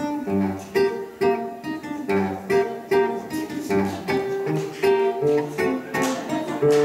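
Acoustic guitar played alone, a steady rhythm of about three strokes a second, in an instrumental passage of the song with no singing.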